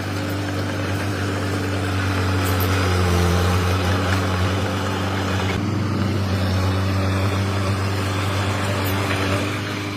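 Komatsu D21P mini bulldozer's diesel engine running steadily, growing a little louder in the middle.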